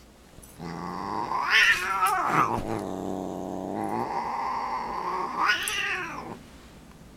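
Siamese cat growling in a long low moan that rises twice into loud wavering yowls, about a second and a half in and again near the end: the angry warning of a cat fending off a dog.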